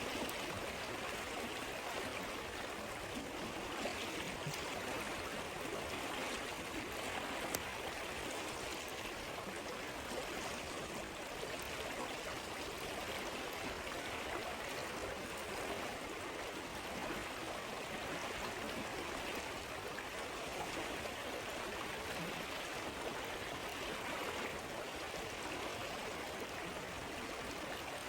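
Stream of water flowing and burbling steadily, with a single sharp click about a quarter of the way in.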